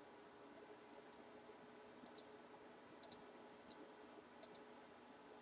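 Faint computer mouse clicks, several in quick pairs, starting about two seconds in, over a low steady hum.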